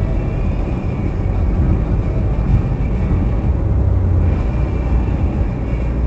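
Steady low rumble of a car driving at highway speed, heard from inside the cabin: tyre and engine noise with no distinct events, swelling slightly for a moment about four seconds in.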